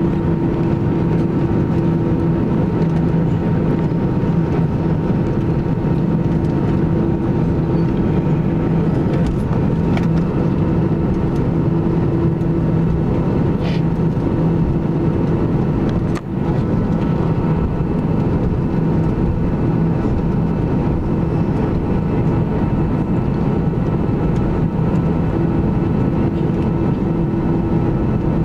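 Airbus A320 jet engines heard from inside the cabin over the wing, running with a steady low hum and constant whine while the aircraft taxis. The level drops out briefly once, about halfway through.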